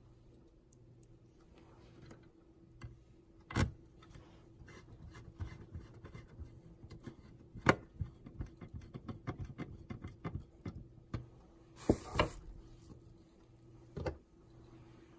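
Hands working on the OKPOS Optimus J19 POS terminal's parts during a motherboard replacement: scattered small clicks and taps, with a few sharper knocks. A faint steady hum underneath.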